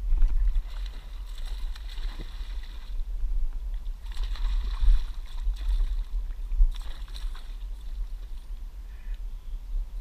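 Wind buffeting the action-camera microphone as a low rumble, with bursts of a spinning reel winding in while a hooked fish is played.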